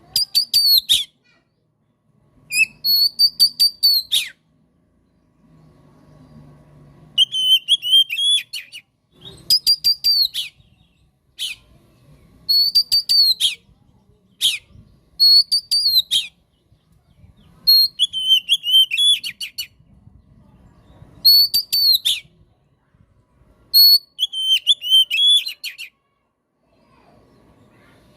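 Oriental magpie-robin (kacer) singing in a repeated pattern. About ten short phrases come with brief gaps between them, each a loud, falling whistled note packed with a quick run of sharp, high notes.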